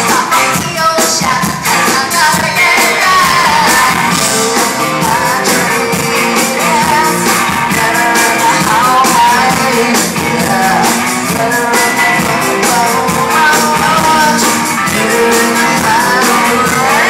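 Hard rock band playing live, with singing over the band and a steady drum beat, heard loud from far back in a large concert hall.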